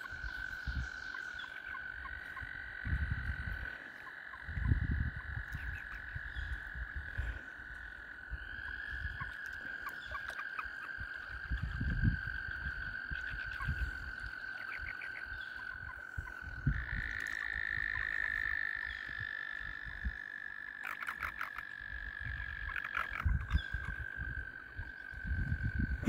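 Male toads trilling in a breeding chorus: long, steady, high trills at slightly different pitches overlapping each other, a further trill joining about a third of the way in and a louder one just past the middle. Intermittent low rumbles sound underneath.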